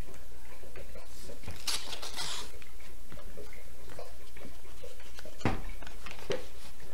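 Paper rustling and small clicks as a greeting-card envelope is torn open and handled, with a short louder rustle about two seconds in and a sharp click near the end, over a steady low hum.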